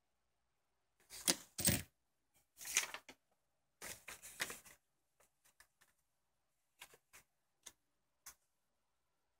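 Handling noises close to the microphone: three short bursts of rustling and scraping about one to five seconds in, then a few scattered light clicks and taps.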